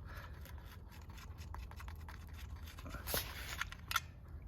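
Faint scraping and a few light clicks of a hand tool working the brake-cover nuts on a Husqvarna 61 chainsaw, as the cover is being taken off.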